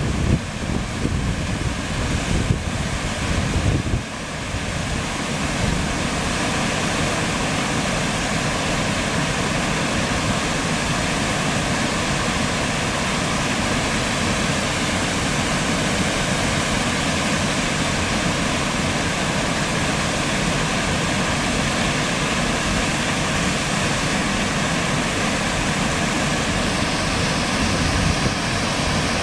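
A waterfall, water rushing steadily. Wind buffets the microphone for about the first four seconds.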